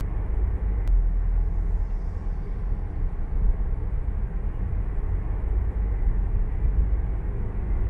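Steady low road and engine rumble heard inside a car cruising on a highway.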